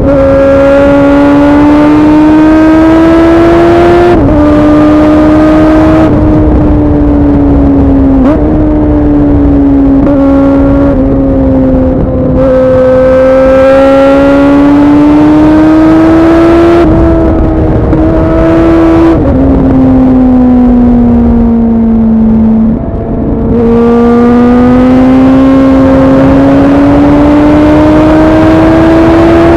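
2009 Suzuki Bandit 650's inline-four engine through a MIVV aftermarket exhaust, heard from on board while riding. The note climbs under throttle and breaks off sharply at each gear change, several times over, with a brief dip before it climbs again near the end.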